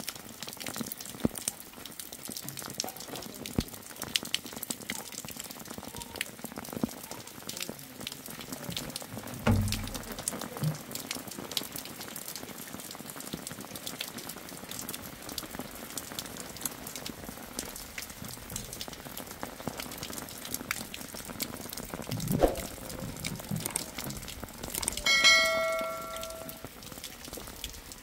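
Rain pattering and dripping steadily. There is a dull thump about a third of the way in, and near the end a metal object is struck once and rings for about a second and a half.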